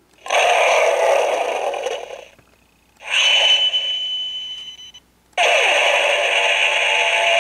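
Laser-fire sound effects from a Playmates Voltron toy's built-in speaker: three harsh, hissing electronic blasts of about two seconds each, separated by short gaps.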